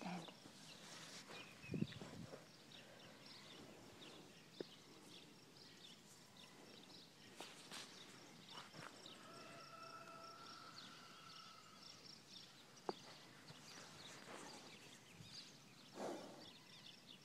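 Near silence: faint outdoor ambience with scattered soft clicks and rustles, a single low thump about two seconds in, a faint thin tone around the middle and a brief breathy noise near the end.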